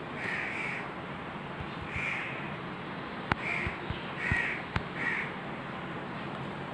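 Crows cawing, about five separate caws, with two sharp clicks between them.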